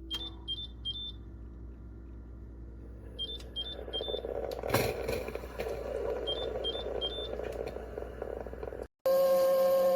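Instant Pot single-serve coffee maker beeping: three groups of three short high electronic beeps a few seconds apart, while a low running hum builds from about three seconds in with a sharp click near the middle. Just before the end the sound cuts out briefly and a louder steady whistle-like tone begins.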